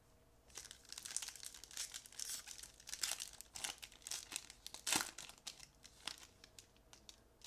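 Foil wrapper of a Topps baseball card pack crinkling and tearing as it is ripped open by hand and the cards are pulled out. It is a dense run of sharp crackles, loudest about five seconds in.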